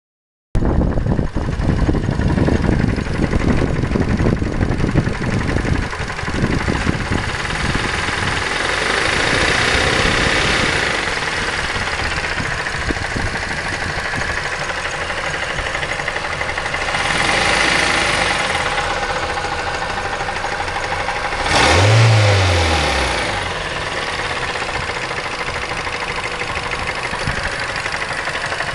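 Engine of a 2005 Mazda 3 running with a rapid knock, the 'strange knock' of unknown cause. It is revved up and eased off a few times, the last a short, sharp blip that is the loudest moment.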